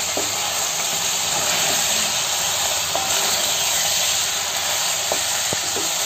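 Chicken pieces frying in hot oil in a steel pot, a steady loud sizzle, stirred with a wooden spatula that gives a few light scrapes near the end.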